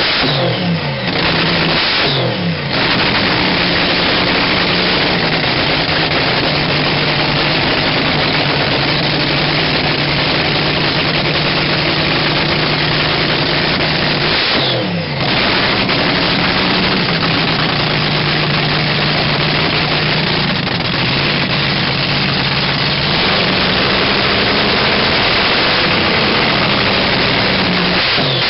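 Supercharged Daimler Hemi V8 running on nitromethane in a front-engined dragster, idling loud and steady, with quick throttle blips that rise and fall about a second in, about two and a half seconds in, and around fifteen seconds in.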